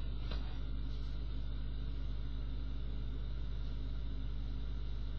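A steady low hum with a faint even hiss over it, and one soft tick about half a second in.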